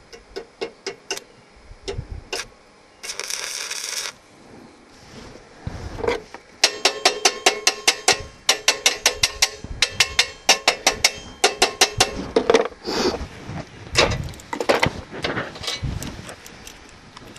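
Stick (arc) welding on steel with a SUZUKID IMAX80 welder: about a second of steady arc hiss, then a long run of rapid sharp clicks and crackles, about four a second, with scattered single clicks around them.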